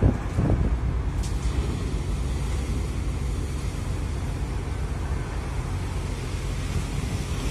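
Steady low rumble of wind and breaking sea around the open deck of a bulk carrier underway, with waves breaking against the ship's side and spray washing over the deck. A thump right at the start and a brief hiss about a second in.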